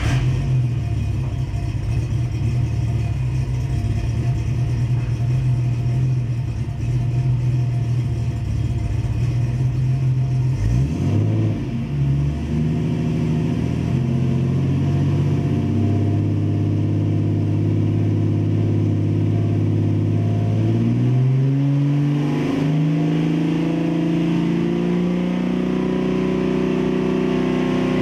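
Car engine running through a newly finished exhaust. It idles steadily, then is raised and held at about 2000 RPM from about ten seconds in. From about three quarters of the way through it is held higher again, at about 4000 RPM.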